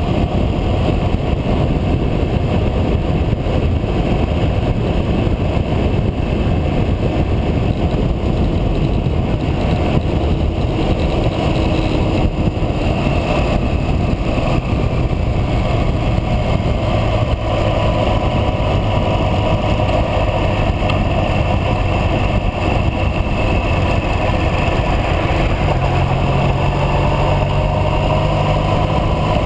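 Motorcycle riding along at road speed, a steady mix of engine and riding noise. The engine note changes a few seconds before the end.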